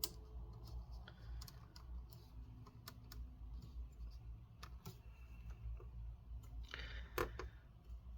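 Light, scattered clicks and taps of fingers and fingernails on a laptop's display panel as they roll and pick at a shredding adhesive strip, with a short rubbing scrape about seven seconds in.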